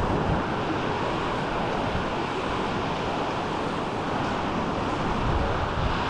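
Small waves washing onto a sandy shore, a steady surf noise, with wind rumbling on the microphone.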